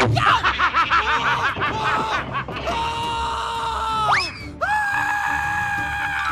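Cartoon character's voice screaming in distress over background music: a fast wavering cry, then long held wails, one with a sharp upward slide about four seconds in.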